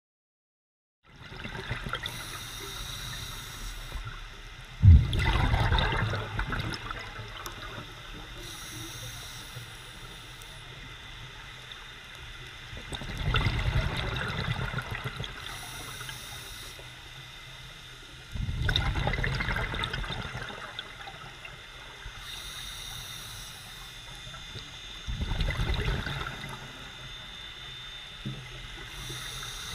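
Scuba diver's breathing heard underwater: four gurgling bursts of exhaled bubbles from the regulator, several seconds apart, over a steady hiss. It starts about a second in.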